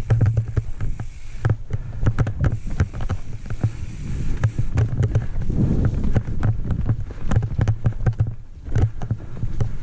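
Santa Cruz Nomad full-suspension mountain bike descending rough forest singletrack: tyres rolling over dirt with many quick knocks and rattles as the bike hits roots and rocks, over a steady low rumble of the ride.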